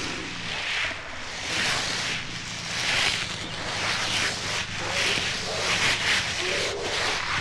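Monster-battle sound effects from a 1970s sound-effects record: a run of harsh, noisy bursts, about one a second, over a steady low rumble.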